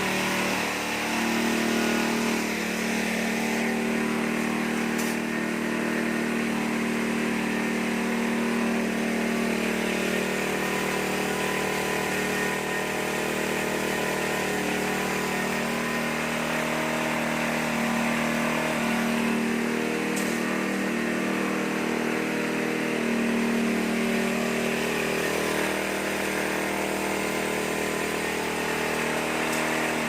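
Engine-driven corn-cracking machine running steadily, with an even mechanical hum and a rattling haze from the grain being broken.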